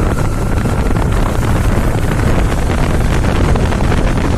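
Bajaj motorcycle's single-cylinder engine running during a road test, with wind buffeting the microphone. The clutch-pull rattle (a repeated 'khata khata') is absent, since new clutch plates have been fitted to the clutch assembly.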